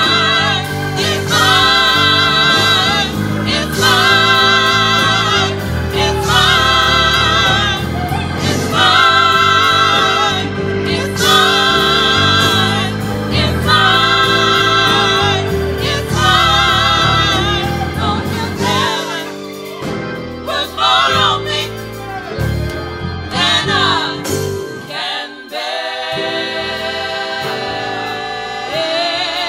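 Gospel praise team of women's voices singing a worship song in harmony, backed by keyboard and electric bass, with regular held phrases sung with vibrato. After about two-thirds of the way through, the backing thins and the bass drops out briefly.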